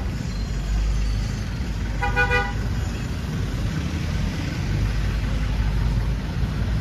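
Street traffic running with a steady low rumble, and a vehicle horn giving one short beep about two seconds in.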